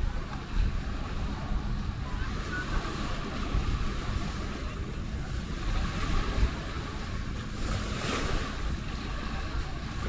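Small waves breaking and washing up on a sandy shore, with wind buffeting the microphone in a low rumble. One wash comes up louder about eight seconds in.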